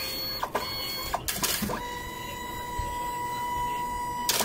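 DNP DS-RX1 dye-sublimation photo printer running with its covers off: a few sharp mechanical clicks, then a steady whine from about two seconds in that stops with a click near the end.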